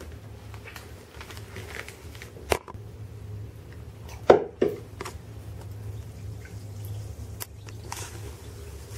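A Basin White bath bomb dropped into bathwater: a plop about four seconds in, then a smaller one just after. Before it, light crinkling of its plastic bag with a few clicks, all over a steady low hum.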